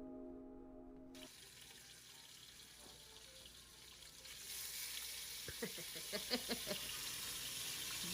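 Soft guitar music ends about a second in. After a quiet stretch, a steady sizzle of fish frying in hot oil sets in about halfway, with a few short squeaks from a pan or utensil.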